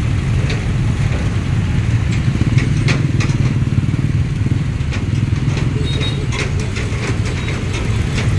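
Many small motorbike and scooter engines idling and pulling away in slow, crowded traffic, a steady rough drone with sharp clicks now and then.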